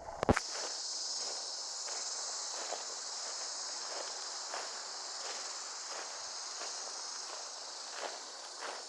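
A steady, high-pitched chorus of insects, crickets or cicadas, with footsteps crunching along a path at an even walking pace. There is one sharp loud click at the very start.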